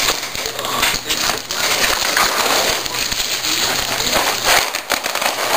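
A keyboard being packed back into its cardboard box: continuous crinkling and rustling of packaging with small clicks and knocks.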